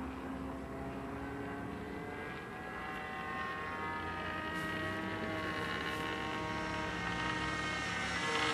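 Phoenix Models YAK 54 radio-controlled model plane's engine and propeller running in flight, a steady buzzing drone that grows louder toward the end.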